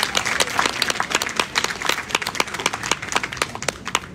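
Audience applauding with dense, rapid clapping to welcome a speaker to the podium; the clapping stops near the end.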